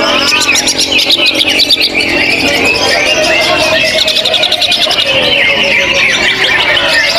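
Several caged songbirds singing at once without pause, a dense tangle of rapid trills, chattering runs and whistles, with people's voices underneath.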